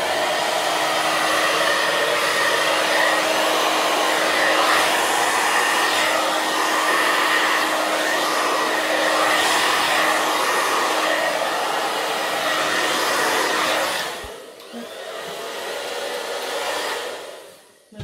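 Hair dryer blowing loudly on wet acrylic paint, a steady rush of air with a faint motor whine, used to blow a poured ring of paint out into a bloom. About fourteen seconds in it drops quieter, then dies away near the end.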